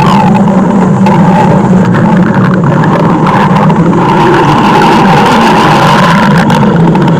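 Stomach growl sound effect: a loud, steady rumble.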